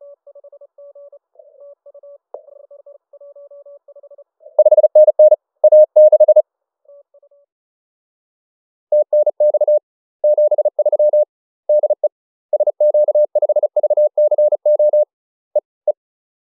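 Morse code (CW) from a Yaesu FT-891 HF transceiver, keyed on and off at one steady pitch. It is faint for the first few seconds, then much louder about four and a half seconds in. After a pause it comes back loud from about nine seconds on, in runs with short breaks.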